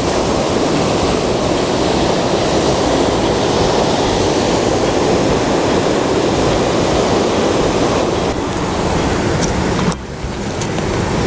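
Steady rush of ocean surf breaking on a rocky shore, mixed with wind. It drops suddenly about ten seconds in.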